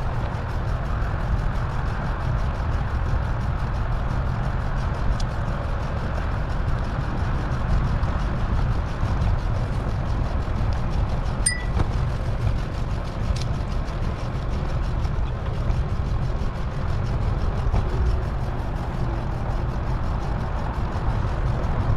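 Steady rushing wind and road noise from riding a bicycle, with a short high beep about halfway through.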